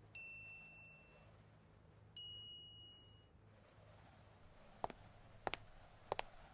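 Two bright, high chime-like dings about two seconds apart, each ringing for about a second, then three short sharp clicks near the end.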